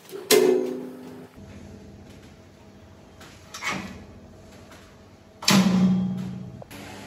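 Three metallic clunks, each with a short ring, from a gear-shift lever and its cable-operated shift arm on the gearbox being thrown into position. A loud clunk comes just after the start, a lighter one midway and another loud one near the end.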